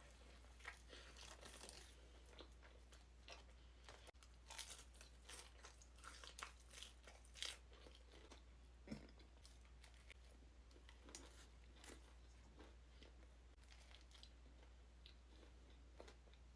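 A person chewing and crunching food close to the microphone: soft, crisp crunches and mouth sounds, busiest in the middle, over a faint steady low hum.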